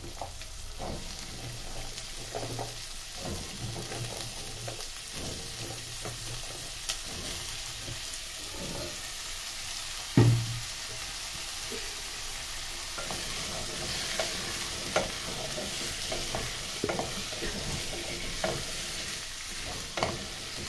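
Onions sizzling steadily in hot oil in a metal pot while cubes of butternut squash and carrot are added, with scattered knocks and clatters and one loud thump about halfway. Near the end a wooden spoon stirs the vegetables against the pot.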